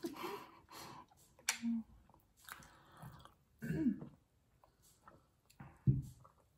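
Close-up chewing and mouth sounds of people eating steamed momo dumplings, with sips from glasses and a few short low throat sounds between bites.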